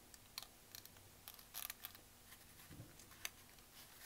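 Faint rustling of paper petals being pinched and pressed between fingers, a few short crinkles over quiet room tone.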